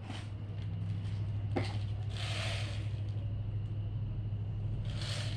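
Faint handling noises from a BB gun being fumbled with while reloading after a dropped BB: a few light clicks and a soft rustle about two seconds in, over a steady low hum.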